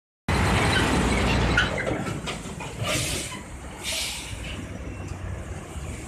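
A large bus passing close by, its engine and road noise loudest for the first second and a half. Two short hissing bursts follow, about three and four seconds in.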